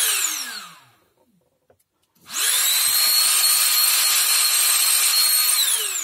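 Jimmy JV63 cordless stick vacuum's motor winding down to a stop, then about two seconds in spinning up with a quick rising whine, running steadily at full speed, and winding down again near the end. The vacuum now switches on and runs, after its sagging, unbalanced battery cells were balanced and recharged.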